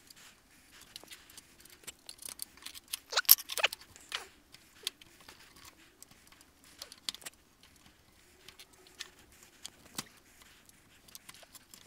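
Scattered light clicks and taps of hand woodworking tools being worked and handled, with a short run of sharper knocks about three seconds in.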